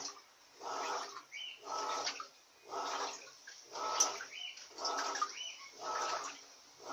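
Electrolux Silent Control 16 kg top-loading washing machine agitating a duvet load on its silent cycle: a swish of water and a motor hum come with each stroke, about one stroke a second, in a steady rhythm.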